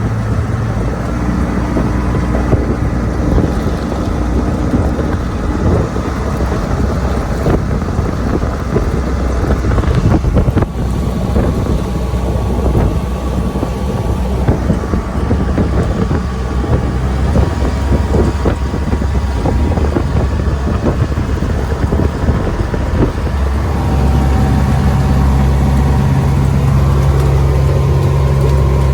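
Kubota farm vehicle's engine running as it is driven along, with rough rattling noise over the engine note. About three-quarters of the way through, the engine tone becomes steadier and a little louder.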